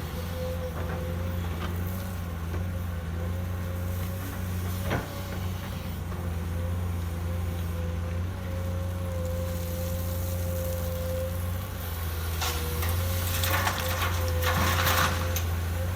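Excavator diesel engine running steadily under a continuous whine. There is a single sharp knock about five seconds in and louder rasping, scraping noise near the end.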